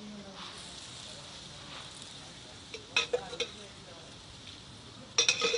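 Lachha parathas sizzling in oil on a large flat iron tawa, a steady hiss. Metal tongs click and scrape against the griddle twice: once about three seconds in and again just before the end, louder than the sizzle.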